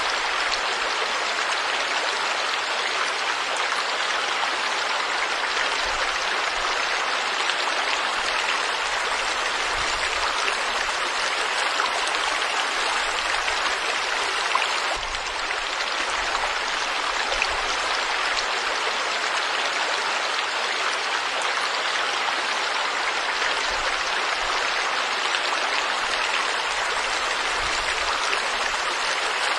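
River water flowing steadily, a constant even rushing.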